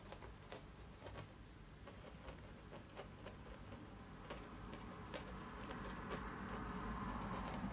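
Soft, irregular taps of a sparsely bristled fan brush dabbing white oil paint onto a canvas. A faint background sound grows steadily louder over the last few seconds.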